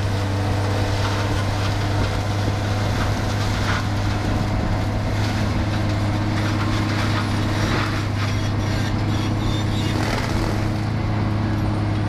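Heavy machine engine running steadily with a deep, even hum while at work removing an almond tree, with a few faint knocks along the way.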